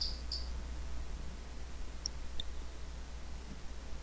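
Three faint clicks of a computer mouse, two of them close together about two seconds in, over a low steady hum.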